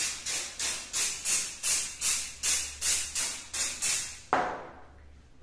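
Rapid rhythmic hissing, about four short strokes a second for about four seconds, from cleaning the sheet-metal back of a refrigerator with aerosol carburetor cleaner and a rag, then one longer, softer swish near the end.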